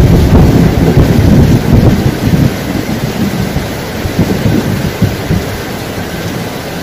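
Thunder: a loud low rumble breaks in suddenly and rolls on, easing off after about three seconds. Underneath, a steady rush of heavy rain and a fast stream running over rocks.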